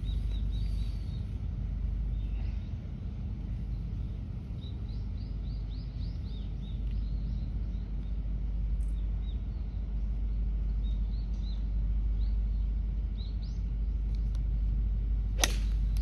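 Small birds chirping in short, high calls over a steady low outdoor rumble, then near the end one sharp crack of a golf club striking the ball off the tee on a full swing.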